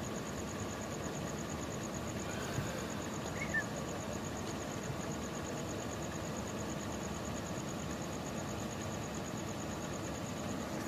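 Steady low rumble of motor vehicle noise in a parking lot, with a small click about two and a half seconds in and a brief high chirp a second later.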